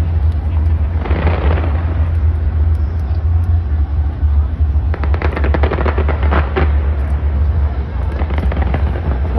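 Fireworks bursting overhead: a continuous low rumble of booms, with a rapid crackling flurry of pops from about five to six and a half seconds in.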